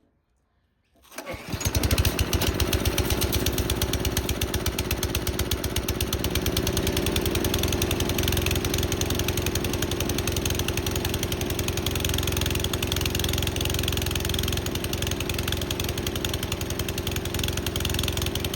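Petrol lawn mower engine, just fitted with a new spark plug and fresh oil, starting about a second in and then running steadily. It runs with a little chugging, which the owner hopes comes from older petrol and the fresh oil still working through the engine.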